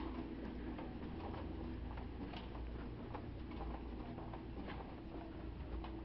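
Footsteps walking on carpet, heard as faint, irregular light ticks about one or two a second, over a low steady hum.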